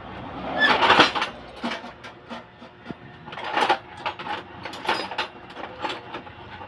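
Irregular knocks, clanks and scraping of metal being worked while a refrigerator is dismantled. There is a longer scraping rush about a second in, another near the middle, and a few sharp knocks toward the end.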